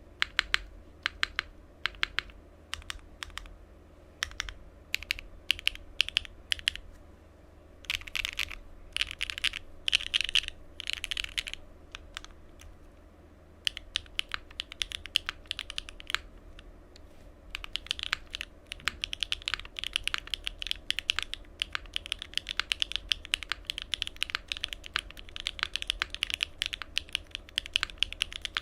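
Cycle7 mechanical keyboard, built with stock Bsun Tai Chi switches, an aluminium plate, gasket mounting and no foam, under GMK Mecha 01 keycaps, being typed on. The keystrokes come separately at first, then in a few quick dense runs about eight to eleven seconds in, and from about fourteen seconds as steady fast typing.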